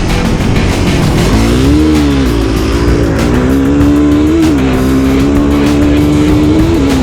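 Off-road vehicle engine running under load, its pitch climbing and falling twice before holding steady for the last few seconds.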